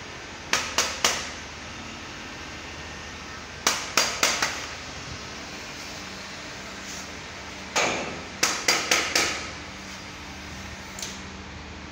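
Sharp hammer blows in quick bursts: three about half a second in, four around four seconds, and five more between eight and nine seconds.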